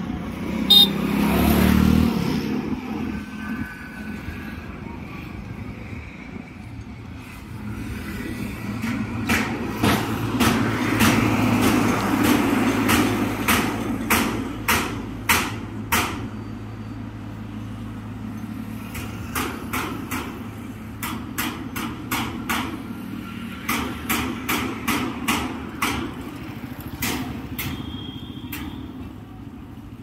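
Hammer strikes in runs of sharp knocks, about two or three a second, over a steady low engine hum. A vehicle passes loudly about a second in.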